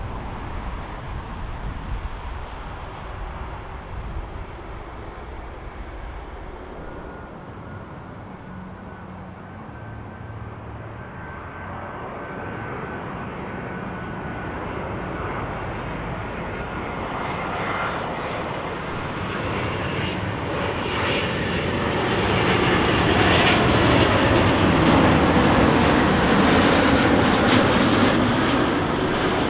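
Jet airliner's engines on approach to land, growing steadily louder to a peak late on and starting to fade at the end. A faint high whine drifts down in pitch early on.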